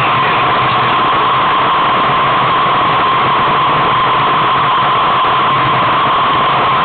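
Steady, loud rushing hiss of wind over the microphone of a camera carried on a moving bicycle, unchanging throughout.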